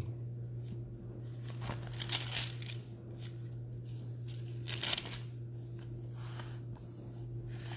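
Thin Bible pages being leafed through by hand: a string of brief papery rustles and flicks, loudest around two and five seconds in, over a steady low hum.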